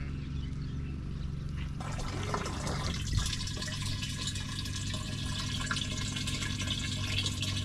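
Water running from a hose into the mouth of a plastic jerrycan as it is filled, a steady splashing pour that starts about two seconds in, over a steady low hum.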